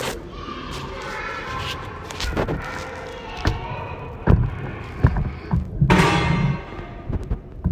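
A handful of dull thumps and sharp knocks at irregular intervals, the loudest and longest about six seconds in, with faint talk in the background.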